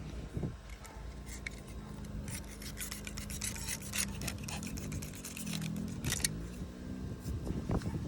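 Razor blade cutting and scraping through partly cured, rubbery fiberglass mat and resin, a run of short irregular scratching strokes, with a low steady hum underneath.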